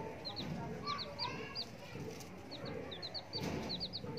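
Baby chick peeping: short, high peeps repeated in quick runs of two to four.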